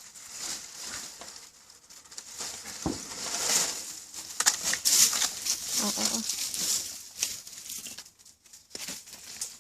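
Scratching and rustling of a dog nosing and pawing to hide a bone, a dry scratchy rustle with small clicks, loudest in the middle and dying down near the end.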